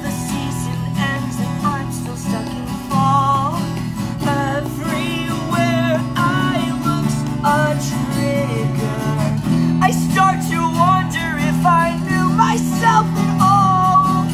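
Live acoustic band music: acoustic guitars strumming over an electric bass, with a voice singing a wavering melody over them.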